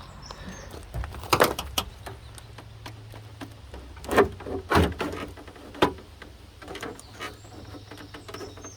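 Metal clicks and knocks from hand work on a 1954 DeSoto's door latch mechanism: a quick cluster of clicks about a second and a half in, then single knocks around four, five and six seconds in.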